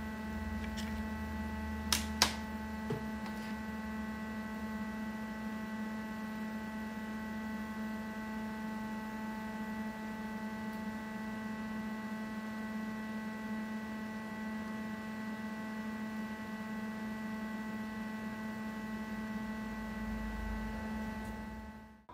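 Steady electrical hum with several fixed pitches, and two sharp clicks about two seconds in and a fainter one a second later.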